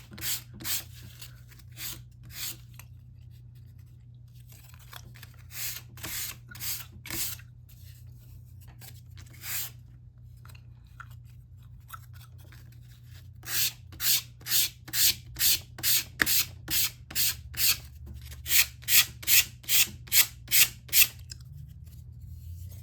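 Sandpaper rubbing along the edges of balsa-wood rocket fins in short back-and-forth strokes: a few scattered at first, then quick even runs of about two to three strokes a second in the second half.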